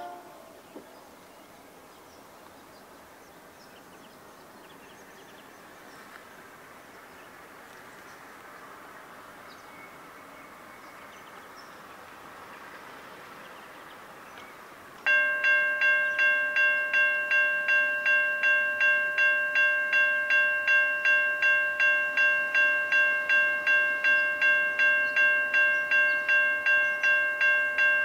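Railway level crossing warning bell starting to ring suddenly about halfway through, a bright metallic ding repeating a bit over twice a second: the crossing has been triggered by an approaching train. Before it, only faint background noise.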